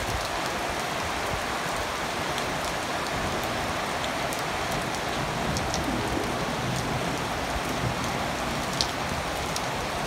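Heavy rain falling steadily: an even hiss, with a few faint ticks here and there.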